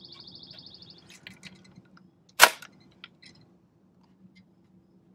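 Electric stapler firing once with a single sharp snap about two and a half seconds in, as it tries to drive a staple through chicken wire into the hard kitchen-cabinet wood; the staple does not go in, because the stapler is not strong enough for this wood.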